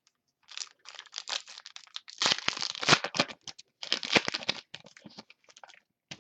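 A trading card pack wrapper being torn open and crinkled, a dense crackling that comes in two louder bursts in the middle.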